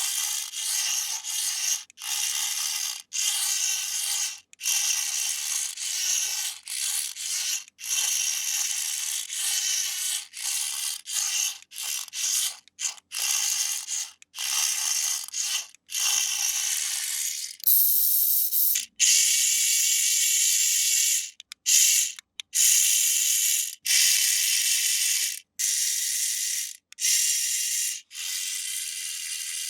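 Small electric motor and plastic gears of a toy RC car whirring at a high pitch, stopping and starting repeatedly in runs of a second or so.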